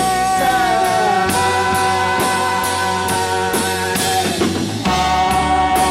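Live rock band playing an instrumental passage between sung lines: sustained guitar or horn notes over bass, with drum hits about twice a second.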